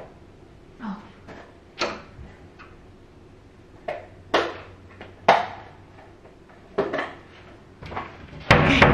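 Kitchen cupboard doors and drawers being opened and shut while searching for a lunchbox: a string of separate knocks and clunks a second or so apart, with a louder clatter near the end.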